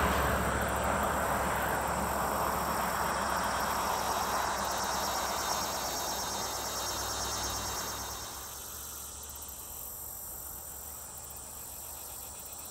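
Steady high-pitched trilling of insects. A passing vehicle's rush fades away over the first several seconds.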